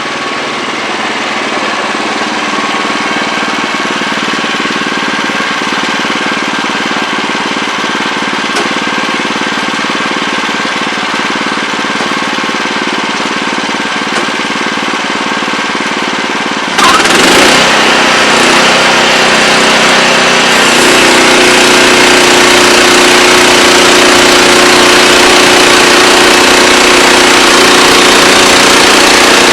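Wood-Mizer LX25 portable sawmill running steadily with its engine going. A little over halfway through, the sound suddenly grows louder and fuller and stays that way.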